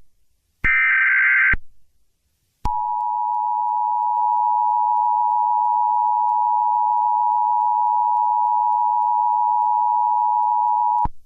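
Emergency Alert System tones: a one-second burst of the digital header data, then, about two and a half seconds in, the two-tone attention signal sounding steadily for about eight seconds before cutting off.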